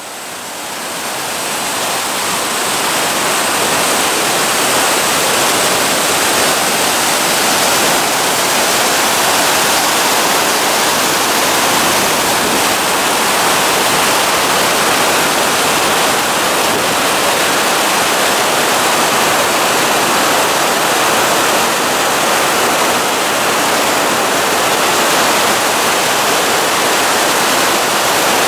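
A large waterfall in spate, swollen by heavy typhoon rain, pouring down with a steady, dense rush of water. The sound fades in over the first few seconds.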